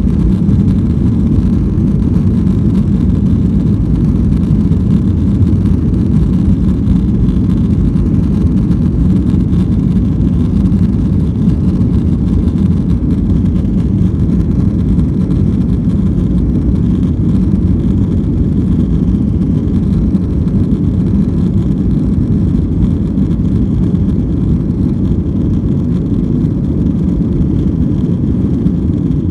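Cabin noise of a Boeing 737-800 moving along the ground: a steady low rumble of its CFM56 turbofan engines and rolling gear, with a faint steady whine above it.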